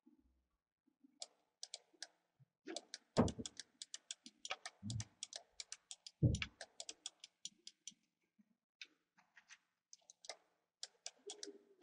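Rapid, irregular clicking of a computer mouse and keyboard, with a few dull thumps about three, five and six seconds in. The clicking thins out after about eight seconds.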